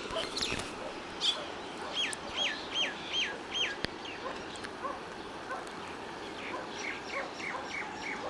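Early-morning bird chorus. One bird repeats a clear whistled note that slides downward five times in quick succession about two seconds in, and a softer run of the same notes comes near the end, with other short chirps around them.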